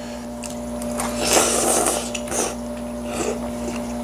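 A person slurping a mouthful of noodles, with one long, loud slurp about a second in, then chewing and a few shorter slurps. A steady low hum runs underneath.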